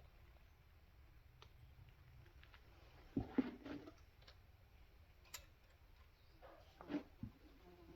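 A few faint, scattered clicks and knocks in near quiet, with a small cluster about three seconds in and two more near the end.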